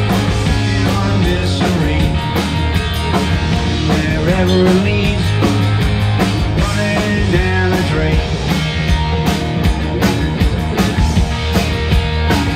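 Live rock band playing: electric guitar, electric bass and a drum kit, loud and steady, with a regular drum beat.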